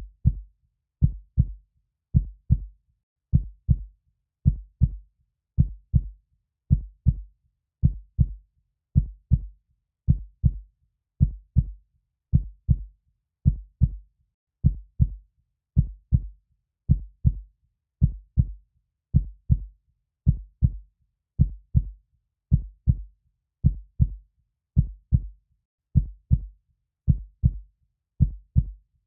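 A slow, steady heartbeat. Each beat is a low double thump, lub-dub, coming a little under once a second, with silence between beats.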